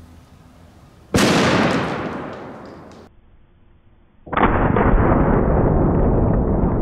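Single-shot 10-gauge shotgun fired with its barrel clogged, a sharp blast that bursts the barrel and echoes away over about two seconds. It is followed by a slowed-down replay of the blast, heard as a long, deep, muffled rumble.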